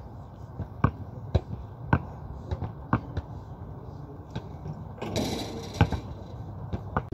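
Basketball bouncing on an outdoor concrete court: dribbled with sharp bounces about twice a second for the first three seconds, then fewer bounces once the ball is shot, with a loud bounce a little before the end. A short burst of rushing noise comes about five seconds in.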